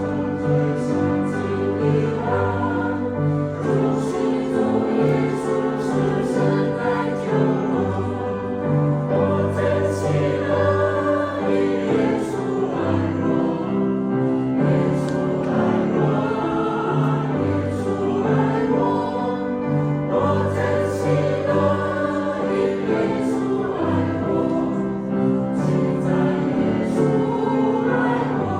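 Church choir singing a hymn in several voices, sustained chords moving steadily phrase by phrase.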